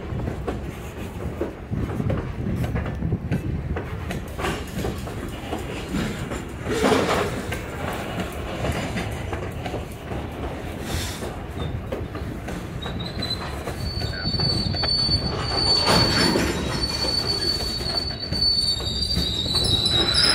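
Freight train of covered hopper cars rolling slowly past: a steady rumble of steel wheels on rail with a few knocks and clanks. About two-thirds of the way through, a high wheel squeal sets in and grows louder toward the end.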